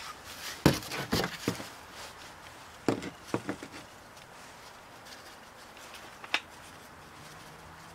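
Scattered soft knocks and rustles as a cloth bag of parting dust is shaken and tapped over a wooden pattern in a wooden molding flask, and a brush is worked over it to spread the powder.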